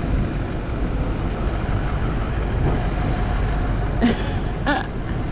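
Vehicle driving, a steady engine and road rumble, with two brief higher-pitched sounds about four seconds in.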